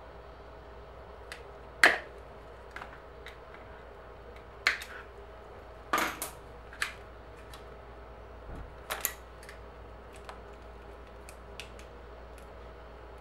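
Plastic zip ties holding a bicycle's front derailleur cable being snipped with side cutters: a handful of sharp snaps spread out, the loudest about two seconds in, with lighter clicks of handling between them.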